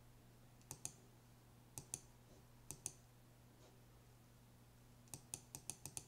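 Sharp clicks of a computer mouse or keyboard, otherwise near silence with a faint steady hum. Three pairs of clicks come about a second apart, then a quick run of about six clicks near the end.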